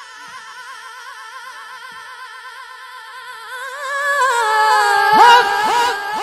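A young man singing a devotional naat, holding one long high note with a wavering vibrato; about four seconds in it grows louder and breaks into quick downward swoops of pitch.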